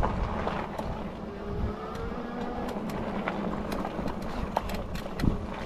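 An Engwe Engine Pro e-bike riding over a potholed gravel track: steady tyre rumble with scattered crunches and ticks of gravel under the tyres. A faint rising motor whine comes in about two seconds in as the bike picks up speed.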